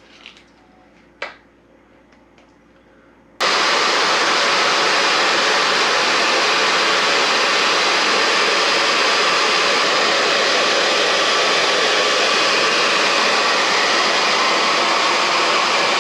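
A few light clicks, then an electric heat gun is switched on about three seconds in, its fan blowing with a loud, steady rush.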